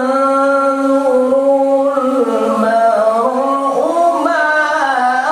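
A qori's melodic Quran recitation: one voice holding long notes, ornamented and sliding between pitches.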